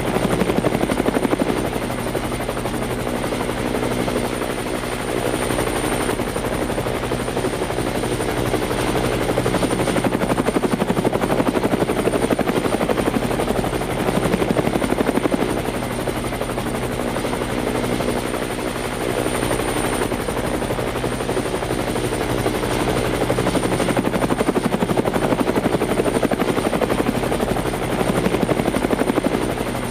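Helicopter running: a steady mechanical hum with a thin high whine, slowly swelling and easing every few seconds.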